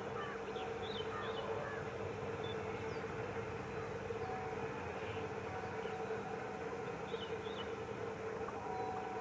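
Distant WDM-3A ALCO diesel locomotive approaching, heard as a steady drone holding one pitch, with a few short bird chirps.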